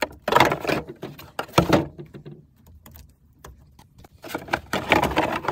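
Hands working plastic vent ducting and connectors on a Toyota Prius hybrid battery pack, making handling noise in three bursts. Two short bursts come in the first two seconds, and a longer one comes near the end.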